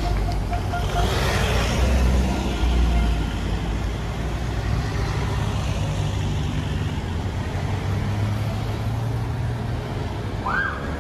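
Motor vehicles passing on the road with engines running steadily, the loudest rush of one going by about one to three seconds in.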